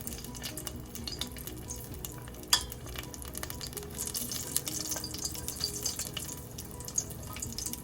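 Sesame-coated dough balls deep-frying in hot oil: a steady sizzle with frequent small pops and crackles, and a sharper click about two and a half seconds in.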